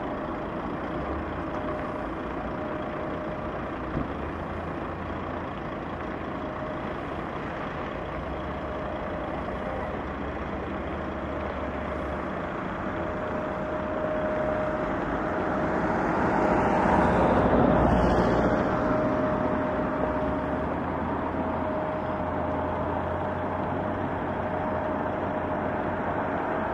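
Heavy-haul truck's diesel engine running as it slowly pulls a multi-axle trailer loaded with a house, with a steady whine over the engine noise. The sound grows to its loudest about two-thirds of the way through, then eases.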